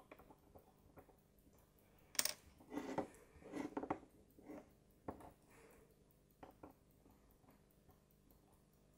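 Faint, brief clicks and light scrapes of small watchmaker's hand tools working on a pocket watch movement while the balance cock is being secured. They fall in a few scattered groups, mostly in the first half.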